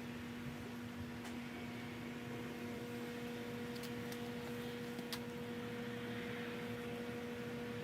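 A steady, even hum, with a few faint clicks, likely small tool or part handling.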